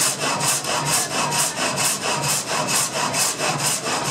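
Water-wheel-driven single-blade sash saw (Venetian frame saw) cutting through a log, its steel blade rasping through the wood in an even, fast rhythm of about four strokes a second.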